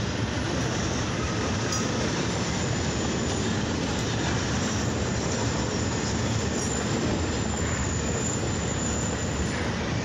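A freight train of flatcars loaded with long rails rolling steadily past. The wheels make a continuous rolling noise on the track.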